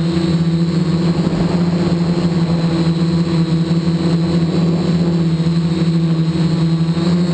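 Karbonic-X quadcopter's electric motors and propellers buzzing steadily in flight, heard up close from a camera mounted on its frame, with only slight wavering in pitch.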